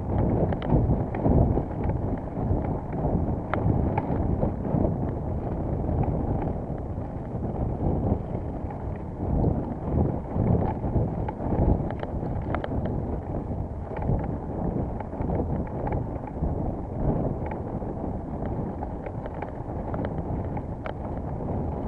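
Wind buffeting the microphone of a camera riding on a mountain bike, a dense low rumble that swells and dips, with scattered sharp clicks and rattles from the bike going over rough ground.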